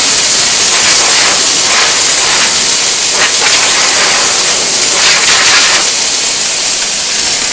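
La Marzocco Linea Mini espresso machine's steam wand opened fully into the open air, giving a loud, steady hiss of very dry steam at full power that stops near the end.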